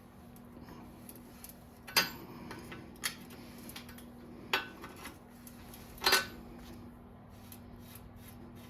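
Small metal bicycle parts clinking against each other and a hard surface while being handled: four sharp clinks about two, three, four and a half and six seconds in, with lighter ticks between.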